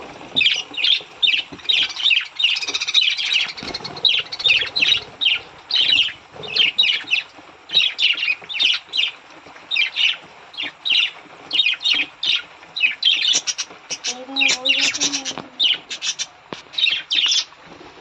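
A crowd of budgerigars chattering and squawking in a small wire carrier cage: a rapid, unbroken stream of short, sharp calls.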